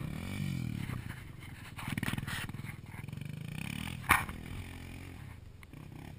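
ATV engine revving up and easing off in several surges as the quad rides across sand, with a sharp click about four seconds in.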